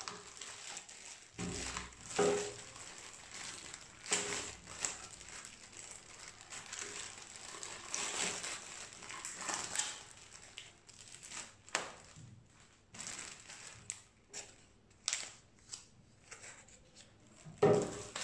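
Clear plastic packaging bags crinkling and rustling in irregular bursts as Epson ink bottles are unwrapped by hand, with a louder knock near the end.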